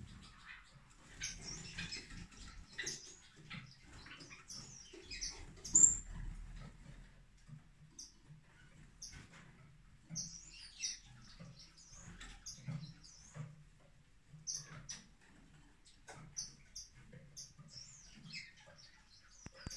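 Small estrildid finches calling in an aviary: short, high chirps scattered irregularly, with one louder, sharper call about six seconds in.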